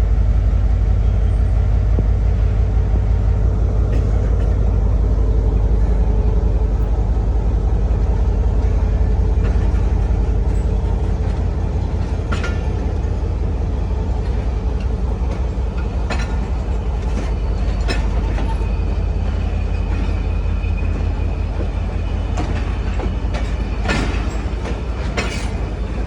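A train running on the rails with a steady, loud low rumble. From about halfway there are scattered sharp clacks as the wheels pass over rail joints.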